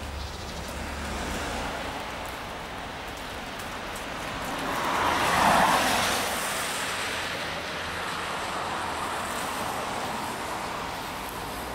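Road traffic on a wet city street. One car passes close by about five and a half seconds in, swelling up and fading away, with its tyres on wet asphalt.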